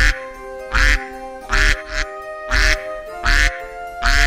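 A duck quacking over and over, about six or seven loud quacks at fairly even spacing, over background music with held notes.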